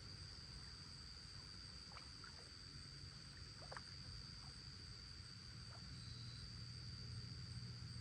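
Faint lakeside night ambience: a steady high-pitched insect trill over a low hum, with a few faint short chirps.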